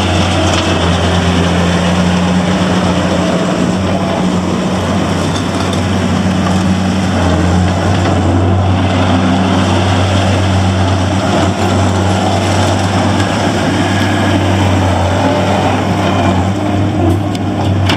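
John Deere CT332 compact track loader's diesel engine running at a steady speed.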